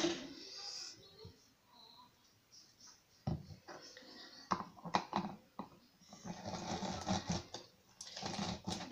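A few plastic knocks as a juicer is set down and handled, then a lemon half twisted back and forth on a plastic reamer juicer: rhythmic rasping and squelching strokes from about six seconds in as the lemon is squeezed.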